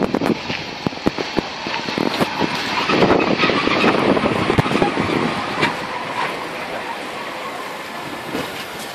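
Deutsche Reichsbahn class 03.10 steam locomotive 03 1010 rolling slowly past at close range, tender first. Irregular knocks and clanks from its wheels and running gear come first, then a louder rush, settling into a steadier hiss from about six seconds in as the locomotive itself draws level.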